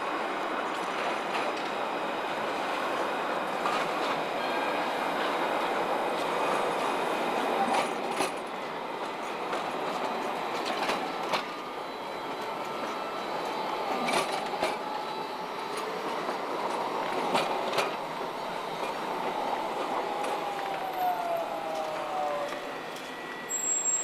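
Strasbourg CTS tram running past on curved track, a steady rolling rumble with sharp clicks as its wheels cross the rail crossings, and a falling whine near the end.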